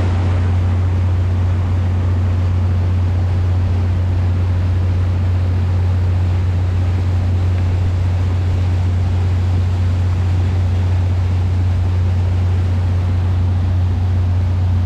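Steady low drone of the 1997 Albin 34 cruiser's inboard engine running under way, over a constant hiss of water and wind passing the boat.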